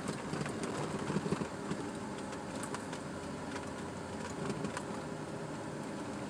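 Vehicle engine running and tyres rolling over a rough gravel road, heard from inside the vehicle, with scattered light clicks from the road surface.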